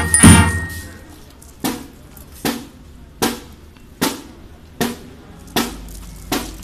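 A school marching band's music ends on a final note about half a second in. A drum then keeps time alone with single sharp strokes, evenly spaced about 0.8 s apart.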